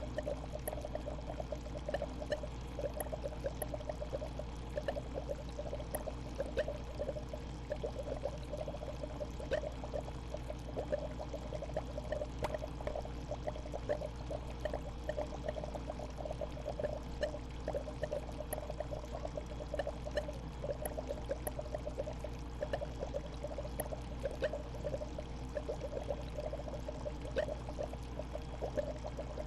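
Home aquarium water bubbling and trickling steadily, a dense patter of small bubble pops over a steady low hum.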